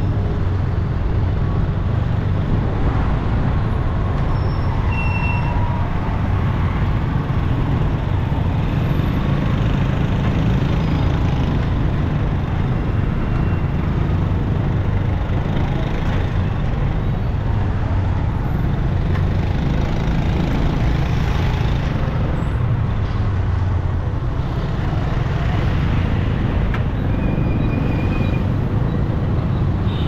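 Steady road traffic noise, a continuous roar of passing vehicles with no single event standing out.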